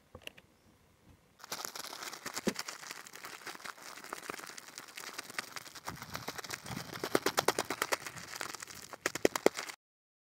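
Plastic bag of flour crinkling and rustling in the hands as pieces of fish are dropped into it to be coated: a dense run of small crackles that gets sharper later on and cuts off abruptly shortly before the end.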